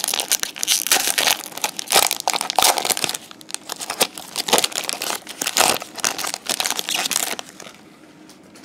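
Plastic wrapper of a trading-card booster pack crinkling as it is torn open and handled. It is a dense run of crackles and rustles that dies down about seven seconds in.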